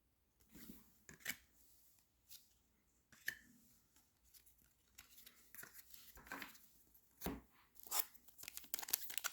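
Faint, intermittent rustling and clicking of trading cards and a foil card-pack wrapper being handled, becoming busier near the end.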